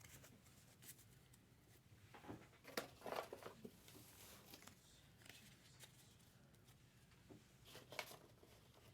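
Near silence with a few faint rustles and soft clicks of trading cards and pack wrappers being handled: a small cluster two to three seconds in and another near the end.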